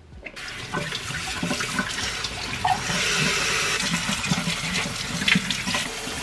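Kitchen pull-down faucet running, its stream of water pouring onto berries in a bowl as they are rinsed. The water comes on about a third of a second in and runs steadily.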